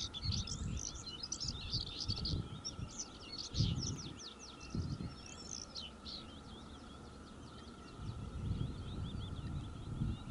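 Songbirds singing with many quick chirps and trills, over irregular low rumbling gusts of wind on the microphone.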